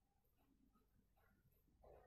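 Near silence: faint room tone with a slight soft blip near the end.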